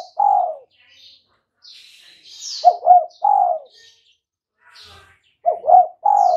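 Spotted dove cooing its three-note phrase of two short coos and a longer, falling croo. Two full phrases come about three seconds apart, and the tail of one is heard at the very start. Faint high bird chirps sound in between.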